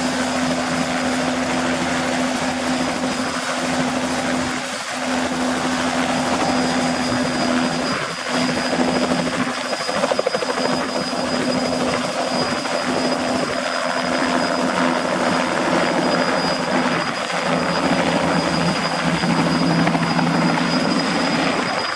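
Bell 206B-III JetRanger running, with its Allison 250 turboshaft giving a thin steady high whine over the rotor noise. The loudness stays fairly even, with small rises and dips.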